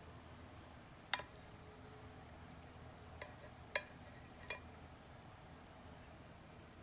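Four light clicks of a utensil or drumstick against a dish, over a faint steady background hum.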